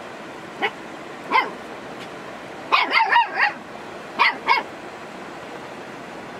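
Dog barking in short barks: two single barks, then a quick run of four about three seconds in, then two more.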